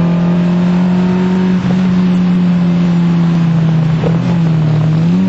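Fiat Punto Mk1's 1.2 16v four-cylinder engine heard from inside the cabin, running at steady revs under way, with a brief dip and rise in pitch near the end.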